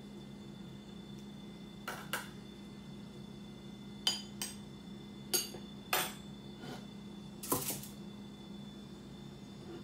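Kitchen dishes and cutlery clinking as the cats' food is being dished up: a series of sharp clinks and knocks, spaced irregularly, with a quick cluster near the end.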